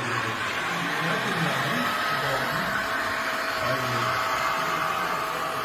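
Steady electric whine of a radio-controlled construction model's motor or hydraulic pump, a whirring hiss with a thin steady tone over it, starting at the beginning and running on.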